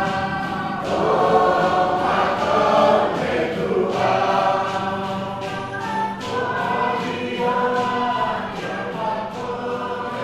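A choir singing, many voices holding long notes together.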